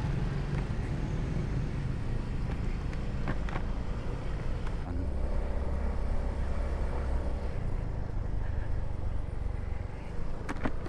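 A road vehicle driving along, heard from on board: a steady low engine and road rumble, with a couple of sharp clicks near the end.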